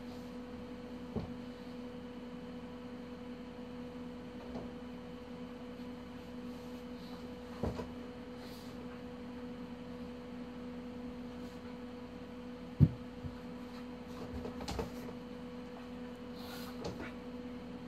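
Steady low electrical hum, with a few scattered soft knocks and one sharper thump about thirteen seconds in.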